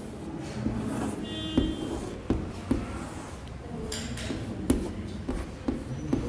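Chalk tapping and scraping on a blackboard while drawing, with several sharp taps and a brief high squeak about a second in.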